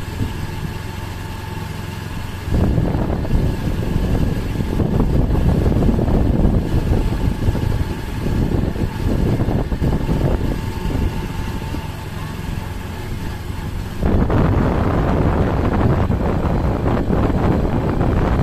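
Engine, tyre and wind noise from a vehicle travelling along a concrete road, a dense steady rush that jumps louder about two and a half seconds in and again near the end.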